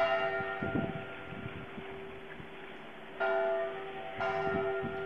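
A bell struck three times, once at the start and then twice more about three and four seconds in, each stroke ringing on and slowly dying away.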